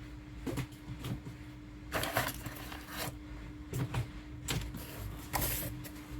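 Cat food packages being handled and set down: several short rustles and light knocks, over a steady faint hum.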